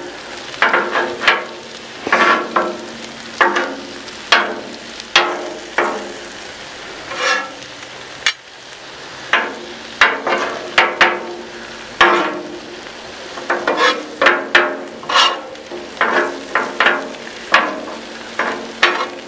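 Two steel spatulas scraping and clacking on a Blackstone flat-top griddle in irregular strokes, about one or two a second, as they push chicken, peppers, onions and mushrooms into piles. The food sizzles on the hot steel underneath.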